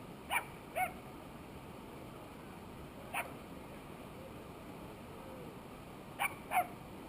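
Five short, sharp animal calls: two in quick succession near the start, one about three seconds in, and two more in quick succession near the end.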